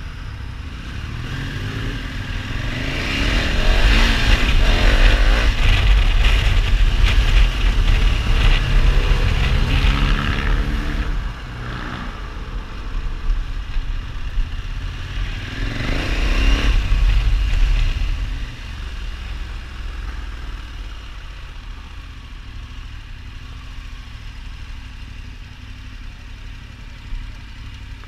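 KTM 1290 Super Adventure S's V-twin engine heard from the rider's seat. It accelerates with rising pitch for several seconds and eases off about eleven seconds in. It surges again briefly around sixteen seconds, then runs quietly at low revs as the bike rolls slowly to a stop.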